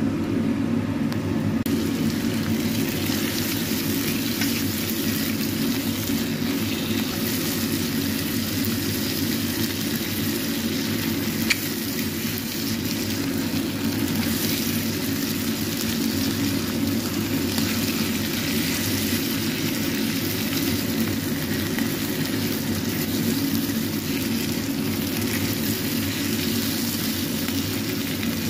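Chicken pieces in spice paste sizzling in a nonstick frying pan while being stirred with a spatula, over a steady low hum. One sharp tap about eleven seconds in.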